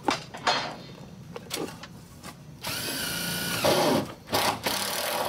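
A shovel blade chopping and scraping into dirt a few times, then about two and a half seconds in a steady machine whine runs for about a second, followed by two shorter loud bursts near the end.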